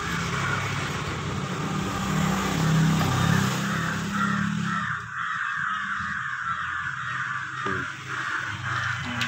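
A bird calling over and over, about two calls a second, with a low steady hum under the first half that fades out partway through.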